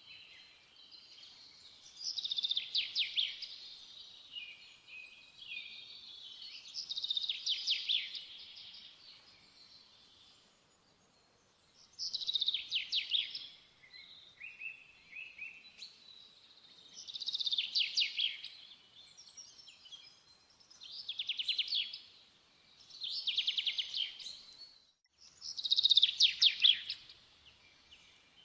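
A songbird singing: short, high trilled phrases, about seven of them, each a second or so long and a few seconds apart.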